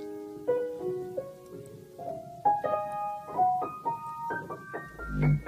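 Keyboard instrument played one note at a time, in a halting sequence that climbs from low to high. A low thud sounds near the end.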